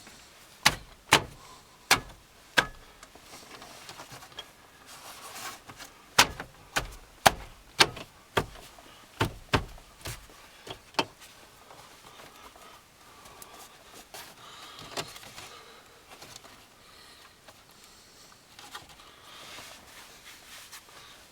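Sharp clicks and knocks, a few at first and then a dozen or so close together, from a car radio and its wiring plugs being pushed and fitted into a van's dashboard, with faint rustling in between.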